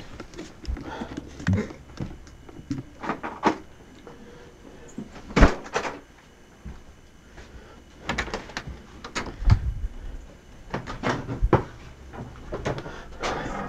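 A door being opened and shut, with a scattering of short knocks and clatters; the loudest is a sharp thump about five and a half seconds in.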